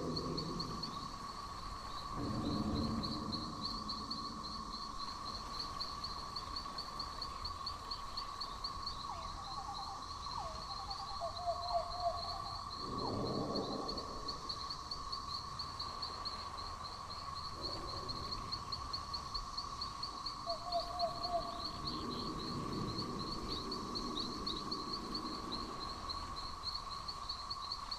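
Crickets chirping in a steady, rapidly pulsing chorus over a steady lower drone, with short lower trilling calls now and then and soft low rumbles at times.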